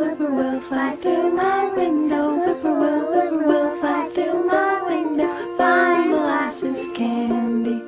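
Children's folk song: singing voices over gently plucked acoustic strings, the voices gliding in pitch as in a sung bird call.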